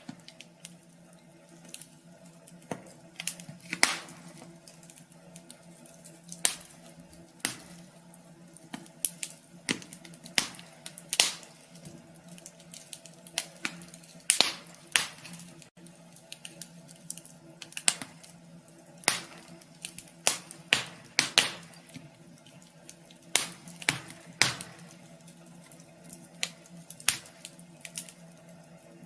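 Wood fire crackling in a wood stove: irregular sharp pops and snaps, some in quick clusters, over a faint steady hum.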